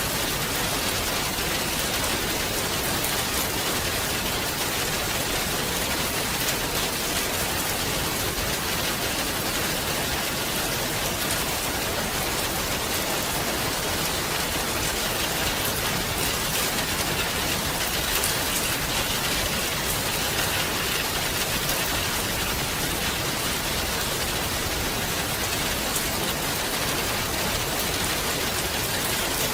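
Steady rain falling on a surface, a dense even hiss with many fine drop ticks and no let-up.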